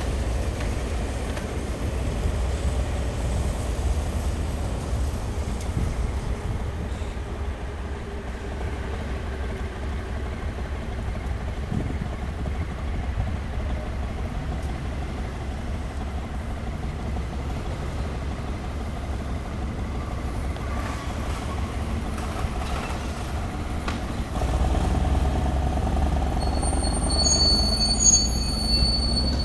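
Steady low wind rumble on the microphone. About 25 s in, a train on the elevated Tobu line gets louder, and near the end its wheels squeal in several high, steady tones.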